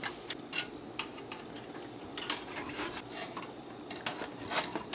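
Metal floppy drive assembly and the Macintosh SE/30's sheet-metal chassis being handled and fitted together: scattered metallic clicks and clatters, bunched about two seconds in and again near the end.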